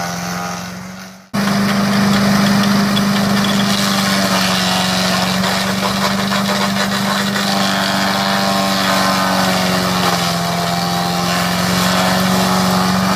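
Craftsman 5 HP chipper shredder's small single-cylinder gas engine running steadily at speed. The sound fades out and cuts back in abruptly about a second in, and the engine pitch dips slightly and recovers in the second half.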